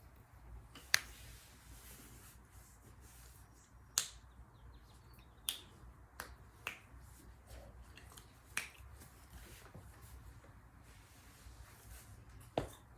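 A handful of sharp, isolated clicks or taps, about seven spread irregularly, over faint low room hum.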